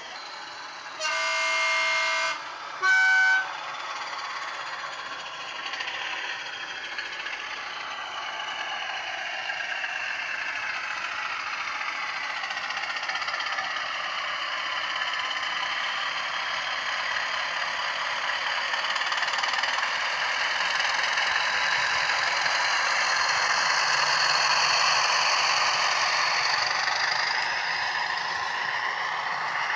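Soundtraxx Econami DCC sound decoder in a model Class 20 diesel playing its horn twice, a longer blast then a short, higher one. The Class 20 engine sound follows, its pitch shifting as the throttle changes, growing louder as the model approaches and easing near the end.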